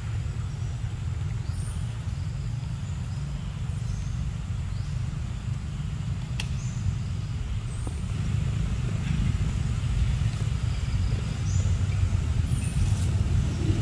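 Outdoor background: a steady low rumble that grows louder about eight seconds in, with a few faint high chirps and one sharp click about six seconds in.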